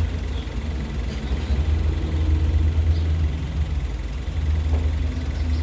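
Suzuki Carry's engine idling steadily with a low, even hum.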